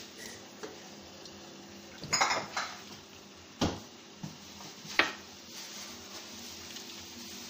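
Metal ladle clanking against an aluminium cooking pot and pan while sauce is ladled over pasta: a quick cluster of clinks about two seconds in, then two single sharp knocks.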